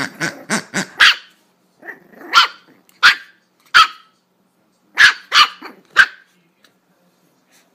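Small puppy yapping: a quick run of high, sharp barks, then single barks about a second apart, stopping about six seconds in.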